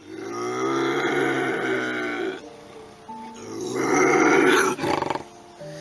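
An animal roaring twice, each roar lasting one to two seconds, over background music with steady held notes.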